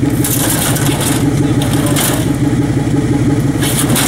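A vehicle engine idling steadily at a low, even pulse, with several short bursts of hissy, scraping noise over it.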